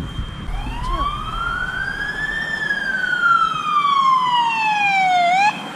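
Fire engine siren wailing: one slow sweep that rises over about two seconds and falls over about three, then cuts off suddenly near the end, over a steady high-pitched tone.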